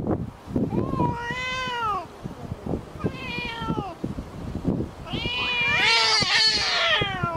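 Two cats yowling at each other in a standoff, the drawn-out threat calls of cats about to fight. There are three long yowls that rise then fall in pitch; the last and loudest lasts about two and a half seconds, with two voices overlapping.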